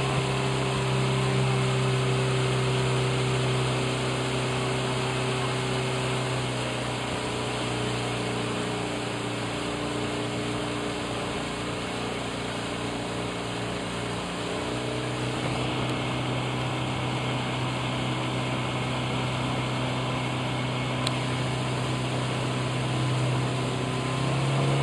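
Motorboat engine running at a steady speed, a continuous drone over water and wind hiss. It eases slightly a few seconds in and picks up again near the end.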